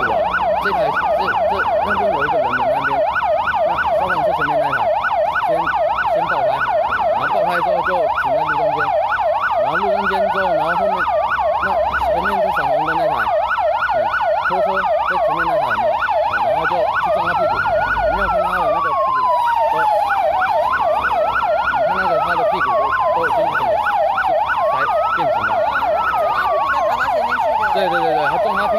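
Emergency-vehicle sirens sounding together: one a fast warbling yelp, the other a slow wail that rises and falls about every four seconds.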